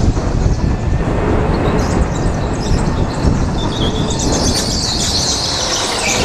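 Go-kart driven hard through a bend on a polished concrete indoor track: the kart running at speed with its tyres squealing, the high squeal loudest over the last couple of seconds.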